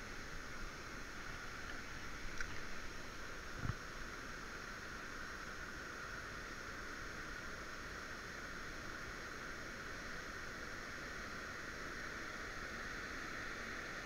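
Steady hiss of rain falling and river water flowing, with a short low thump about four seconds in.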